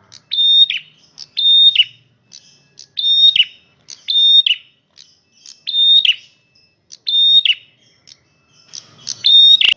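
Male prenjak merah, a small Indonesian warbler-type songbird, singing loud, sharp whistled notes about once a second. Each note is a quick upward flick, a held high tone, then a drop at its end. A short click comes near the end.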